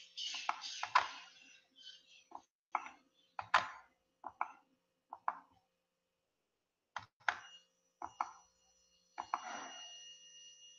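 Computer mouse clicks and small taps on a desk, sharp and irregular, a dozen or so, with a brief rustle at the start and again about nine seconds in, over a faint steady high tone.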